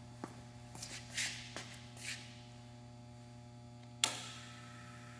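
Steady low electrical hum, with a few soft footsteps on a concrete floor in the first two seconds. About four seconds in, a single sharp click from a switch on the milling machine's column-mounted electrical box.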